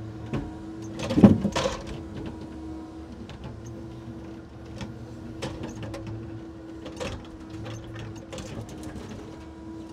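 A truck-mounted hydraulic timber crane working, heard from inside its cab. Its hydraulics hum steadily. About a second in, timber mats in the grapple knock and clatter against wood, and a few lighter knocks and clicks follow later.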